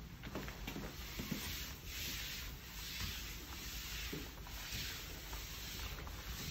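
Disinfectant wipe rubbing over cabinet doors in repeated back-and-forth strokes, a swishing rub that rises and falls about once or twice a second, with a few light knocks.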